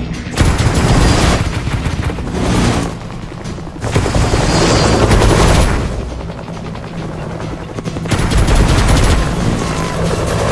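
Helicopter rotor chop in fast fly-bys, swelling loud and fading away three times, over a music soundtrack.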